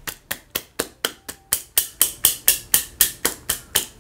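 One person clapping their hands in a steady run of about sixteen sharp claps, roughly four a second, applauding.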